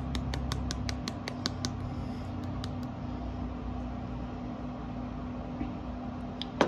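Spice jar of ground mustard shaken hard over a baking pan, a fast, even rattle of about five shakes a second that stops about three seconds in, with a couple more shakes near the end. The powder is not coming out well through the shaker's small holes. A steady low hum runs underneath.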